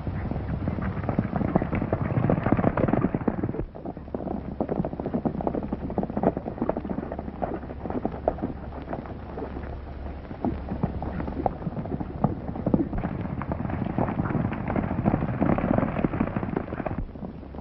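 Horses galloping on a dirt road: a dense, irregular clatter of hoofbeats that thins out briefly about four seconds in and again near the end, over a low steady hum.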